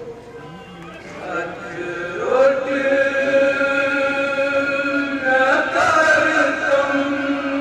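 A Kashmiri noha, a Muharram lament, chanted by a male reciter. The voice comes in about a second in, slides up into long held notes, and changes pitch again about two-thirds of the way through.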